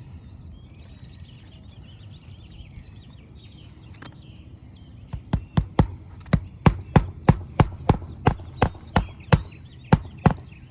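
A hammer driving roofing nails into an asphalt shingle: about fifteen sharp strikes, roughly three a second, starting about halfway through.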